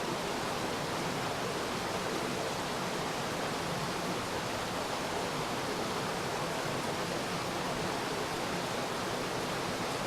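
Steady rushing of running water from a canyon stream.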